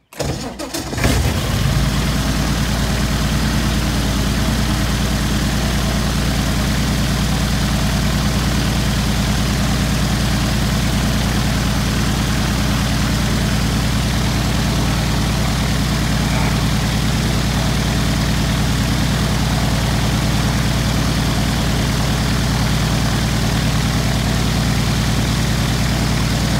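UL Power UL520iS six-cylinder aircraft engine cranked and catching, then settling within about a second and a half into a steady idle at low throttle, driving the propeller.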